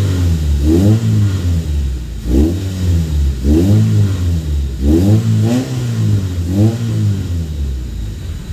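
Mitsubishi Lancer GSR engine, warmed up, blipped in a series of short revs from idle, each rising and falling back, then settling to a steady idle near the end. With its MAF sensor freshly cleaned, it returns to idle smoothly: the rough idle is cured.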